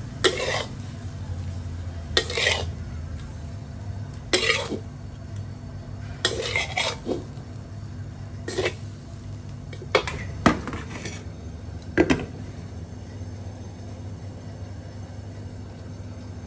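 Metal spatula scraping a steel wok as stir-fried squid is scooped out, in short rasping strokes about every two seconds, over a steady low hum; the scraping stops about three-quarters of the way through.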